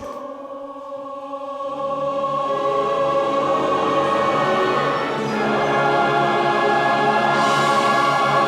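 A choir singing long held chords, the sound growing fuller and louder as lower voices come in about two seconds in.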